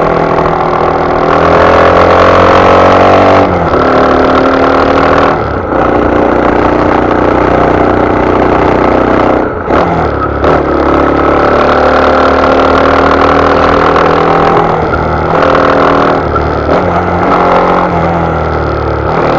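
Yamaha Serow 250's air-cooled single-cylinder engine through a Delta Barrel 4 aftermarket muffler, revving while riding: the pitch climbs, drops back at gear changes or throttle lifts several times, then climbs again. Very loud, the sign of the open muffler without a quieter baffle.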